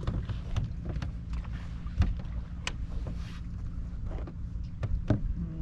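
Small fishing boat's engine running steadily at idle, with scattered sharp clicks and knocks over it.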